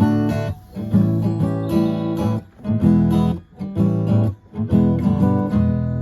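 Strummed acoustic guitar music in a rhythmic pattern of chords, the last chord left ringing and fading near the end.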